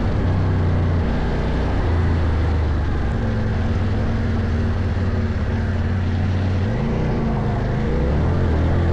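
A CFMOTO Ibex 800T adventure motorcycle's parallel-twin engine running under way, its revs rising and falling about a second in and again near seven seconds.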